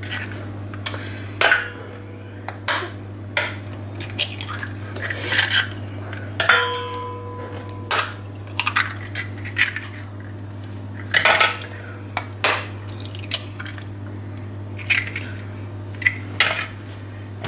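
Eggs being cracked one after another with a table knife: repeated sharp taps of the blade on the shells and clinks against a glass mixing bowl, over a steady low hum.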